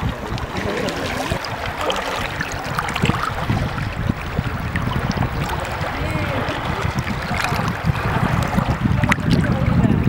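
River water rushing and splashing around inflatable rafts as they are paddled, with low rumble building near the end.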